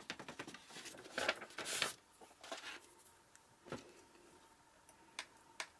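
Paper rustling and light scraping as excess clear embossing powder is tipped off a sheet of paper back into its small jar, dense in the first two seconds. A few faint clicks follow as the jar is handled.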